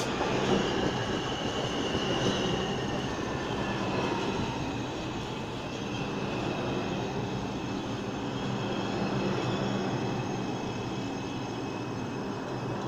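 New York City subway train rolling along the platform, its steel wheels squealing on the rails in thin, steady high tones over a rumbling run and a low hum.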